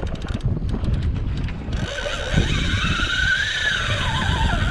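Wind buffeting the microphone while a Penn spinning reel is cranked against a hooked fish. From about two seconds in, a wavering high-pitched whine runs on above the wind.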